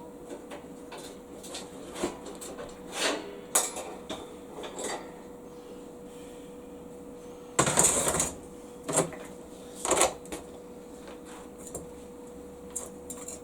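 Steel parts and hand tools being handled on the bandsaw vice: scattered clinks and knocks, with a louder half-second scraping burst about eight seconds in and two shorter ones soon after, over a faint steady hum.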